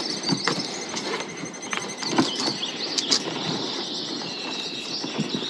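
Scattered knocks, clicks and rustling of pack gear being handled and shifted on a mule's pack saddle.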